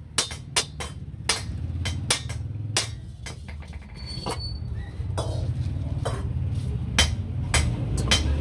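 Hammer striking a sheet-iron wok while its handle is riveted on: irregular sharp metallic blows, sparser around the middle, over a low steady hum.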